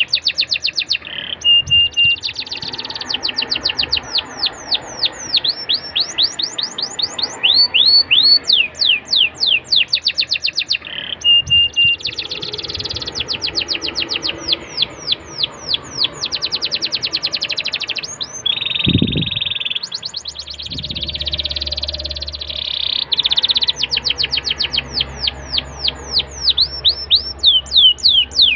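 Domestic canary singing in long rolls of rapid, evenly repeated high falling notes, broken by short pauses.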